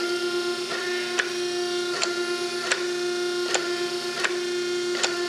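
12-ton hydraulic forging press's electric motor and hydraulic pump running steadily with a constant hum, with a light tick about every three-quarters of a second.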